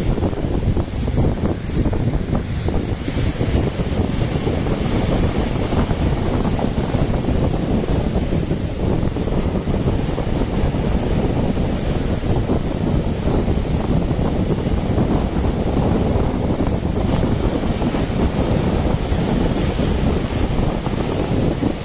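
Wind buffeting the microphone in a steady low rumble, over the wash of sea waves.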